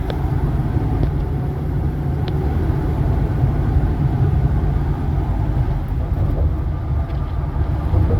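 Road and engine noise of a vehicle driving at highway speed: a steady low rumble.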